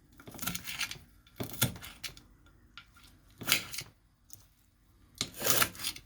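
Kitchen utensils scraping and knocking against a dish or cutting board in four short, separate strokes while taco fillings are handled.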